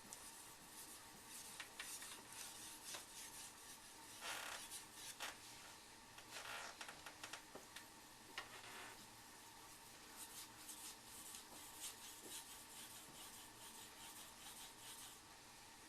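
Steel knife blade being stroked back and forth on a waterstone: faint, irregular scraping and rubbing strokes.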